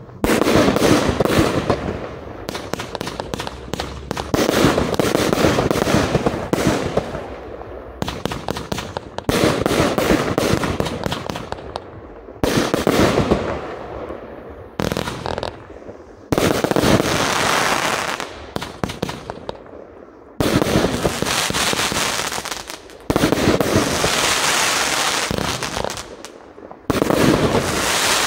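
Riakeo Colossus compound firework cake with 25/30 mm shots, firing in rapid volleys. Dense launches and star bursts come in loud stretches a few seconds long, with short lulls between them.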